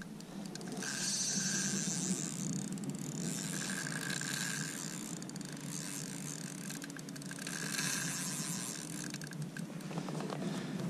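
Fishing reel's gears whirring and clicking as line is cranked in against a large hooked lake trout, in spells of a second or two with short pauses between.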